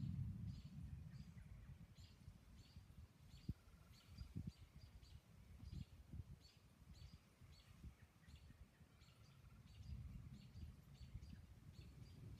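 Faint, short, high bird chirps repeating a few times a second, over a low, uneven rumble that swells at the start and again about ten seconds in.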